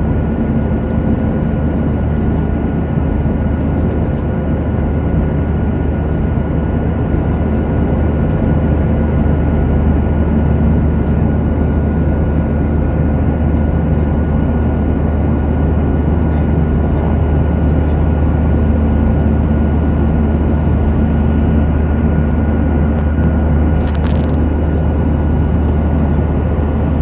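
Steady engine and airflow noise inside a passenger aircraft cabin in cruise flight, with a low hum and a thin steady whine. A brief hiss about three seconds before the end.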